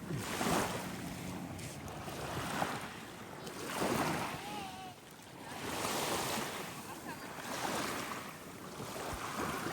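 Ocean waves washing onto the shore, the surf noise swelling and fading every couple of seconds.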